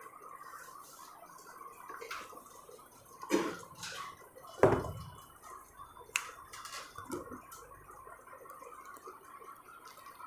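A few knocks and thumps in a small room, the loudest about four and a half seconds in, with lighter clicks around them over a faint steady background hiss.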